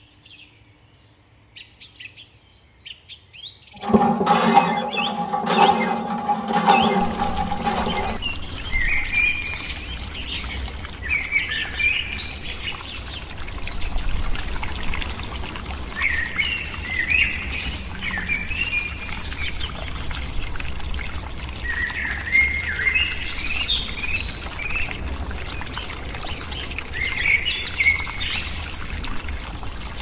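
Birds chirping over and over, with water pouring from a miniature water pump's spout into a small pond. About four seconds in, a buzzing hum with clicks sounds for about four seconds, the loudest part.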